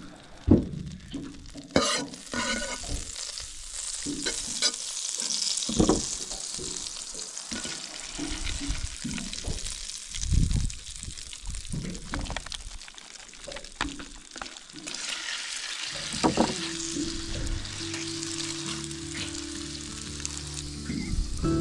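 Butter sizzling and frying in a stainless steel pan on a charcoal COBB grill as a halved crayfish tail and then snapper chunks are laid in, with occasional knocks and clinks from handling the pan and food. Background music comes in about three-quarters of the way through.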